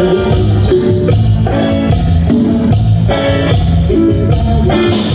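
Live Tejano band playing an instrumental passage between sung lines: drums and bass under a melodic lead line.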